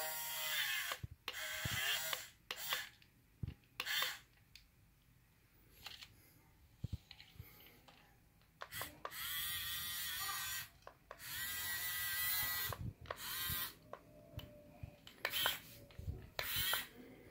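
Huina toy RC excavator's small electric gear motors whirring in repeated bursts of one to two seconds as the boom and bucket move, with quiet gaps between.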